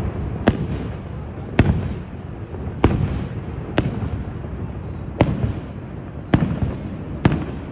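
Aerial fireworks shells bursting: about seven sharp bangs, roughly one a second, each trailing off in a rumbling echo, over a steady low rumble.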